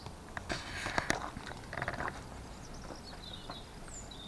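Small birds chirping, with two short bursts of scuffing and clicking about half a second and two seconds in.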